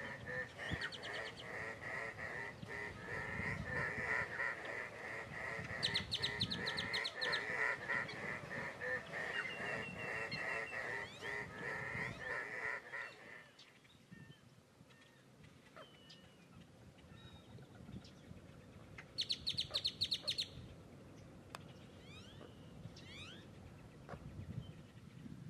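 A flock of ducks calling together, a dense chorus of overlapping calls that drops away about halfway through. Scattered single bird calls and two short, rapid high trills follow.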